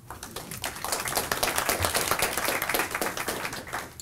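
A small audience applauding: steady clapping that swells within the first second and dies away near the end.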